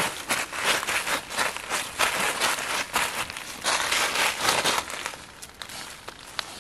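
Dry fallen leaves crunching and rustling underfoot in quick, uneven steps, quieter from about five seconds in.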